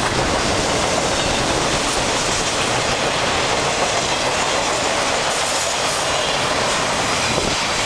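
Enclosed autorack freight cars rolling past at close range: a steady rumble of steel wheels on rail.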